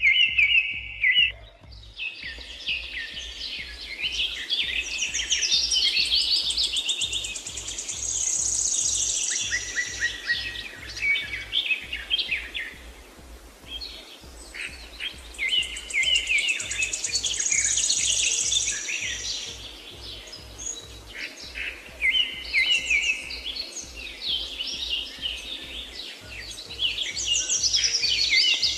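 Birds chirping and trilling in quick, overlapping phrases, over a low, steadily pulsing bass line of background music.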